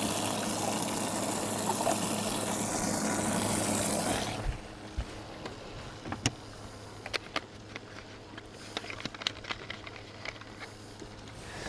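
A boat's livewell pump running with water spraying into the well: a steady hiss over a low hum that shuts off abruptly about four seconds in. After it comes a quieter hum with scattered small clicks and taps of handling.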